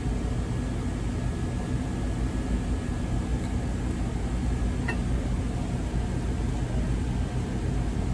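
Steady low mechanical hum, with a faint high tone for the first few seconds and one light click about five seconds in.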